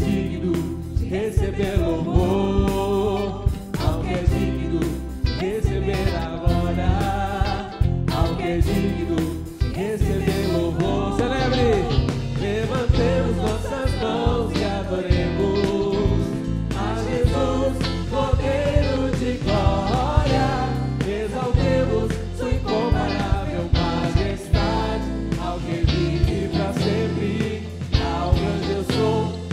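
Live Portuguese-language worship song: a woman's lead voice, with other singers, over a live band's accompaniment.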